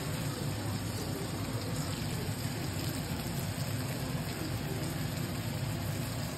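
Sirloin steak sizzling steadily in foaming butter with garlic cloves in a frying pan while the butter is spooned over it.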